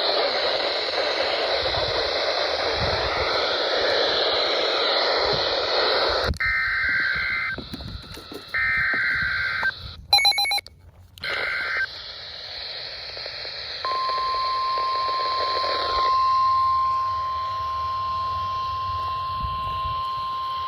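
Radio static hiss, which cuts off about six seconds in. Then come three short bursts of the warbling two-tone data header of an Emergency Alert System message, with a brief loud blip between the second and third. About fourteen seconds in, the steady single-pitched warning alarm tone of a weather radio starts.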